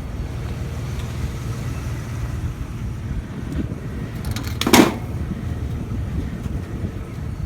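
A vehicle running with a steady low rumble, and a single short, sharp clatter about five seconds in.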